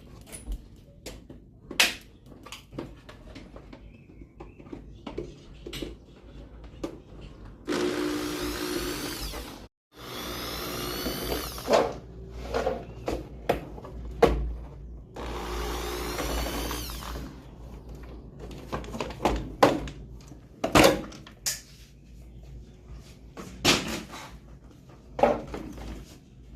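Electric drill/screwdriver running in three short bursts of about two seconds, each spinning up in pitch, as screws are backed out of a washing machine being taken apart. Scattered knocks and clicks of handled parts and tools in between.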